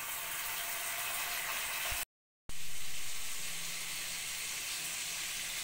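Chicken pakodi deep-frying in hot oil: a steady sizzle, broken by a sudden silent gap of about half a second two seconds in, then resuming.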